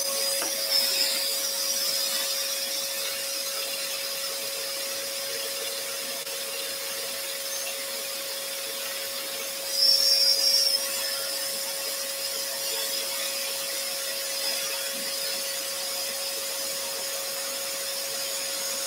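Scroll saw running, its blade cutting steadily through a board along a straight line, over the steady hum of a dust extractor. About ten seconds in, the cutting grows louder for about a second.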